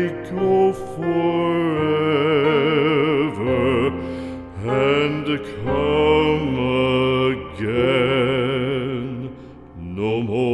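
Slow soundtrack music with long held notes wavering in vibrato, moving in phrases, with a short lull near the end before a new phrase begins.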